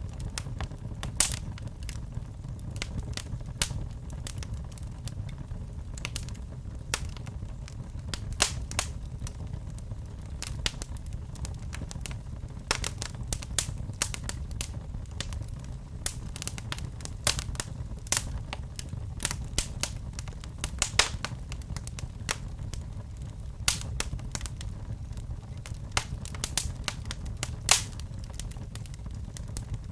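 A fire crackling, with frequent irregular sharp pops and snaps over a steady low rumble of flames.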